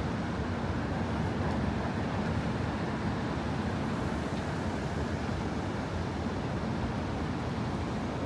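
Steady city street traffic noise: a constant low wash of passing vehicles with no single event standing out.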